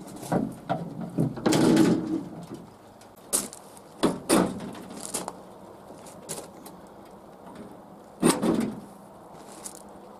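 Metal clunks and clicks, with a short sliding scrape near the start, as a fat-tyre e-bike and a steel rack frame are handled in a pickup truck bed.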